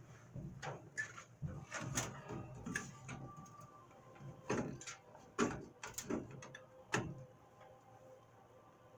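Light knocks and clicks of metal steering-column parts being handled and shifted, scattered irregularly and stopping about two thirds of the way through.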